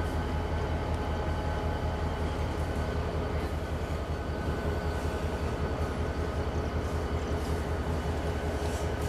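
Diesel locomotive engine running steadily at low speed with a deep, even rumble and a faint steady whine, as it slowly moves the locomotive along the track.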